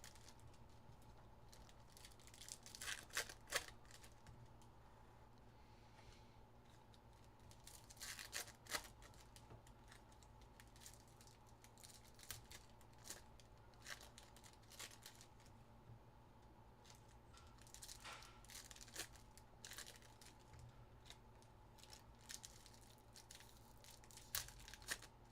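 Trading-card pack wrappers being torn open and crinkled, in a few short faint bursts spread through the stretch, over a faint steady hum.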